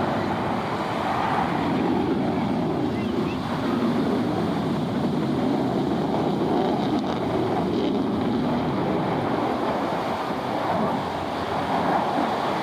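Steady rushing of ocean surf and wind buffeting the microphone, with no clear jet engine sound standing out.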